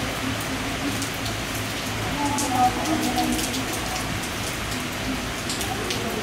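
Thunderstorm rain falling steadily, with the sharp ticks of single drops striking a surface close by.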